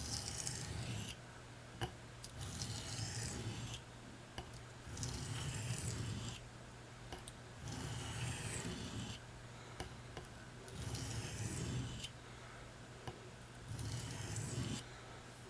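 A Buck 389 Canoe pocketknife blade drawn across a combination sharpening stone in six even strokes, each about a second long with short pauses between. Each pass gives a gritty rasping scrape as the edge is ground to raise a burr.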